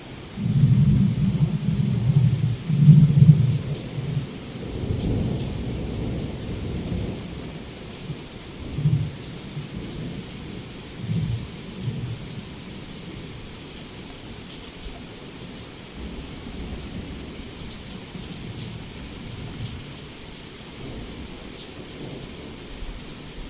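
Heavy rain falling steadily, with a roll of thunder that breaks about half a second in. The thunder is loudest over the first few seconds, then rumbles on in weaker bursts for several more seconds before dying away under the rain.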